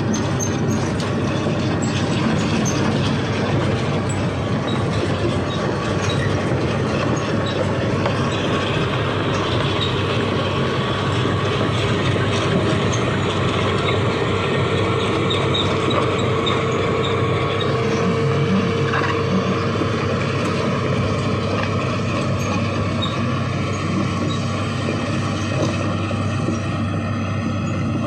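Heavy diesel machinery running steadily, with a held whine through the middle.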